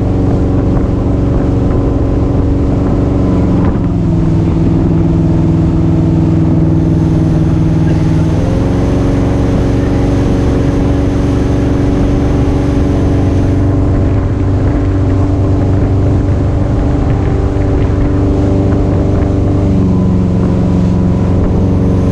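Motorboat engine running at speed while towing, a steady drone whose pitch shifts a few times with the throttle: down about four seconds in, up again about eight and a half seconds in, and down near the end. The rush of the wake runs underneath.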